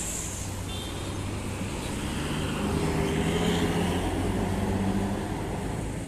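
Intercity coach's diesel engine running as it drives past, with road traffic behind it; the engine hum grows louder from about two seconds in and eases off near the end.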